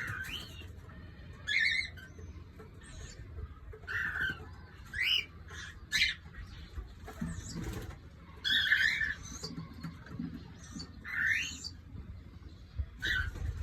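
Cockatiels calling: short chirps and rising whistled calls, one every second or so, over a low steady rumble.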